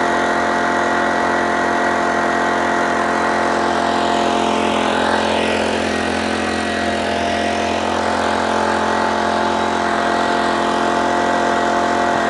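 Small Honda portable generator's engine running at a steady speed while powering a plugged-in electric fan and light bulb. The even hum holds throughout, dipping slightly in level around the middle.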